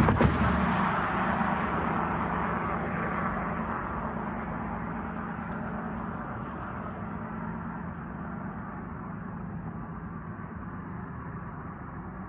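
Amtrak San Joaquins passenger train rumbling away after passing the crossing, its wheel and engine noise fading steadily, with a low hum lingering.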